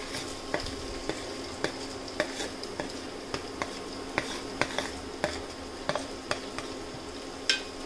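Metal spoon scraping and tapping against a plastic plate as fried chicken pieces are pushed off into a rice cooker: a string of irregular clicks and scrapes, about one or two a second, with a sharper click near the end. A steady faint hum runs underneath.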